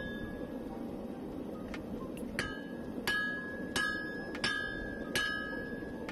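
Hand hammer striking red-hot leaf spring steel on an anvil, drawing the bar out: about six ringing blows at a steady pace of roughly three every two seconds, starting a little under two seconds in. Each blow leaves a clear, high anvil ring.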